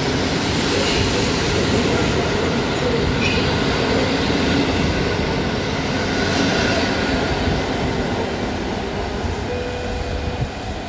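PKP Intercity passenger coaches rolling past along the platform: a steady rumble of steel wheels on rail with faint wheel squeal. It eases off near the end as the last coach goes by.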